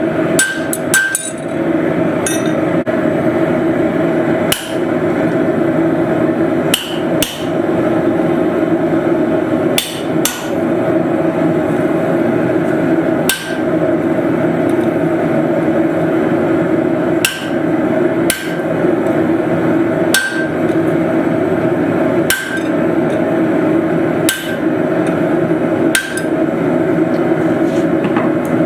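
Hammer striking hot steel on an anvil while forging blacksmith's tongs, with a steady rushing noise underneath and sharp ringing strikes every second or two.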